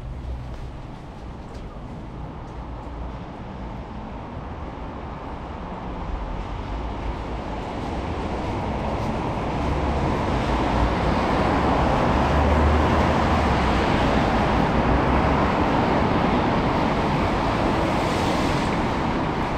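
Vehicle noise: a rumble and hiss that builds slowly over about ten seconds, holds steady, then eases a little near the end.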